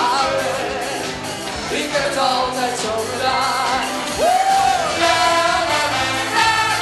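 Upbeat party-band music with a lead singer over a full band; about four seconds in the voice slides up into a long held note.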